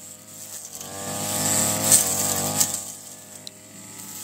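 Brush cutter engine revving up, loudest about two seconds in, then easing back down, with a couple of sharp ticks near its peak.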